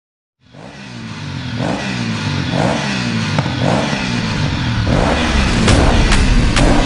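An engine revving up and down over and over, fading in at the start, with sharp clicks joining in after about five seconds.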